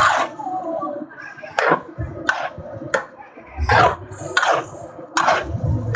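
A run of sharp chopping knocks, roughly one every three-quarters of a second, unevenly spaced.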